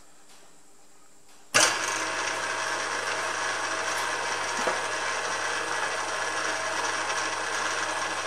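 Milling machine switched on about a second and a half in, its motor and gearing then running steadily at the slowest spindle speed with a low hum, turning a tapered tap in the drill chuck to thread a 6 mm hole.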